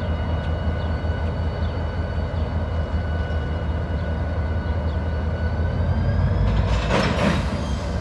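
Diesel freight locomotives approaching slowly, their engines rumbling with a steady whine. The whine rises slightly and the sound grows louder from about five seconds in, with a brief hiss near the end.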